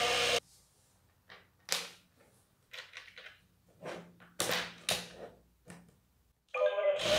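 Electronic buzz of an L'Apina Pizzichina toy bee cuts off about half a second in. Then come scattered light clicks and taps of small plastic honeycomb pieces being picked from the hive tray. The buzz starts again near the end.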